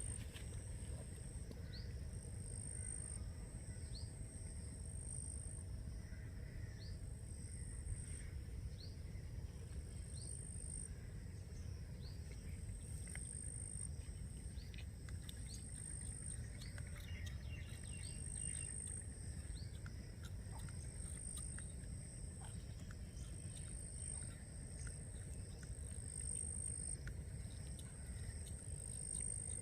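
Outdoor insect and bird sounds: a high insect buzz that swells and fades every couple of seconds, with scattered short falling bird chirps over a steady low rumble.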